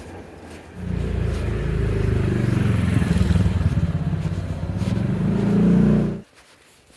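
A motor vehicle's engine running loudly close by, starting about a second in and cutting off suddenly near the end.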